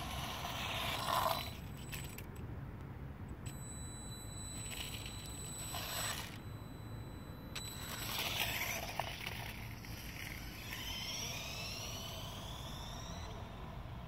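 Small electric motors of a LEGO RC café racer motorcycle whining as it drives, the whine rising in pitch as it speeds up near the start and again near the end, with brief rushes of hiss about a second in and around six and eight seconds.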